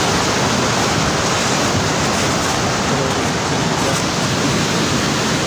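A loud, steady rushing noise with no breaks, heard outdoors in the wake of a hailstorm.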